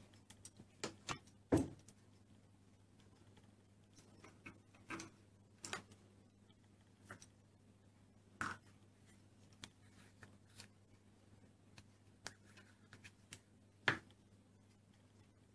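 Scattered light taps and clicks of plastic Play-Doh cookie moulds and tools being handled, the loudest about one and a half seconds in and near the end, over a faint low hum.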